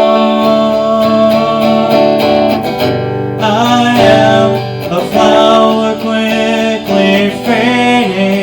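Acoustic guitar strumming chords in an instrumental passage between sung lines.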